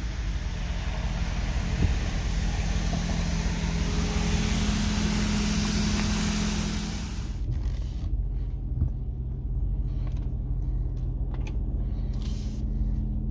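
A vehicle engine running steadily, with a loud hiss over it that cuts off about seven and a half seconds in, leaving the engine alone.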